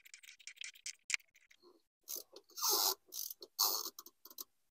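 Ratchet wrench clicking as the fuel filter is tightened down into its housing: a run of fast, faint clicks, then about four louder strokes from around two seconds in.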